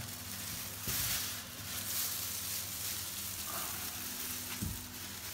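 Thin plastic masking film and its tape crackling and rustling as they are handled and peeled off ceramic wall tiles.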